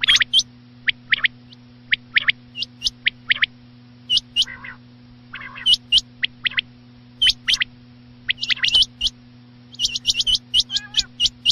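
Recorded rain quail calls, a lure-call mix: short, sharp notes, mostly in quick pairs, repeated over and over and crowding together near the end, with a few lower rasping calls among them. A steady low hum runs underneath.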